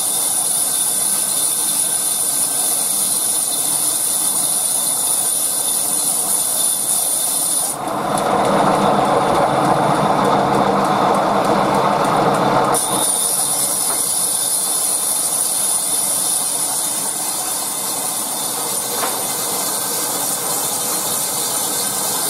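Large sawmill bandsaw running, with a steady high whine over a continuous mechanical noise. For about five seconds, starting about eight seconds in, the whine drops out and a louder, lower rushing noise takes over.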